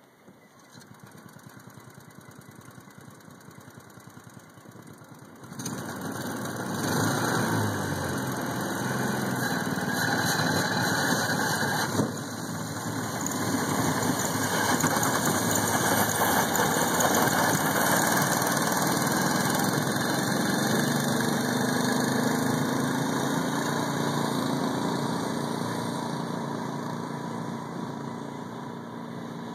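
Ice scratcher boat's small gasoline engine running, quietly at first, then opening up about five and a half seconds in and running steadily at high revs. It fades near the end as the boat drives off across the ice.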